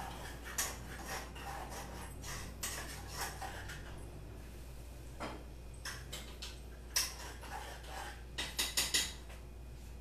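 Metal pots, pans and utensils clinking and clattering on a stovetop in scattered knocks, with a quick run of four or five clinks near the end.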